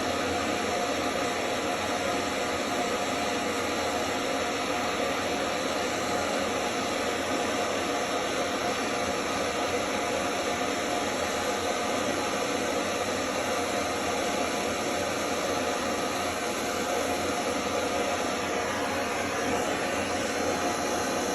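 Gas soldering torch flame burning with a steady hiss while heating copper pipe.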